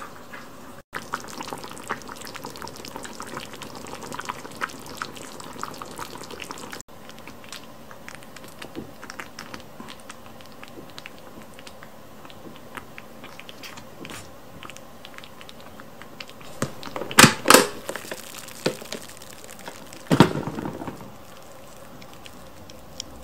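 A pot of curry simmering and being stirred with a ladle: soft bubbling with many small ticks and scrapes, broken off abruptly twice. Near the end come two loud sharp knocks and then a short rush of noise.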